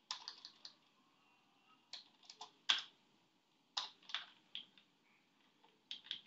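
Typing on a computer keyboard in short runs of a few keystrokes, with pauses of about a second between runs.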